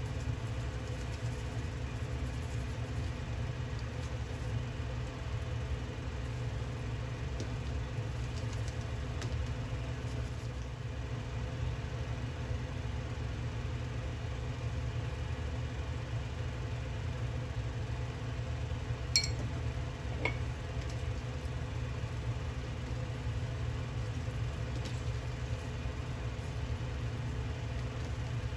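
A steady low machine hum, with two light, sharp clicks about a second apart roughly two-thirds of the way in.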